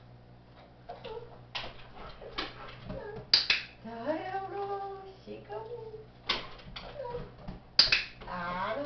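Dog-training clicker giving a handful of sharp single clicks, a second or more apart, the loudest two about the middle and near the end. Each click marks the dog's front paws going onto the balance ball, the cue that a treat follows.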